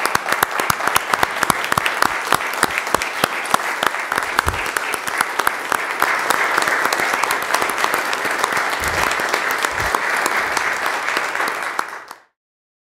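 Sustained applause from a room full of people clapping, dense and steady, cutting off suddenly near the end.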